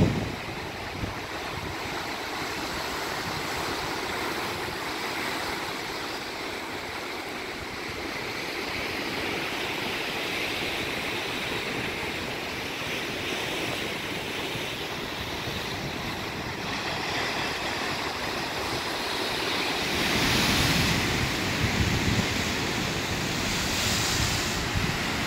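Ocean surf washing and breaking around dark volcanic rocks, a steady rush of water. Heavier low rumbling from wind on the microphone comes in near the end.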